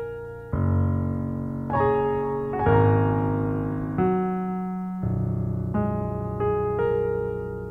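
Slow piano music: low bass notes and chords struck about once a second, each left to ring and fade, under a quiet melody line.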